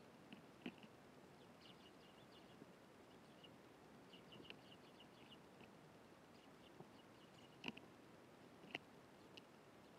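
Eurasian tree sparrows chirping faintly in short, scattered high chirps, with a few sharp clicks; the loudest click comes about three-quarters of the way through.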